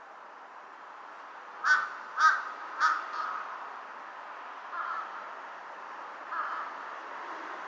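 Large-billed crows cawing: three loud harsh caws in quick succession about two seconds in, followed by a few fainter caws spaced out over the next few seconds.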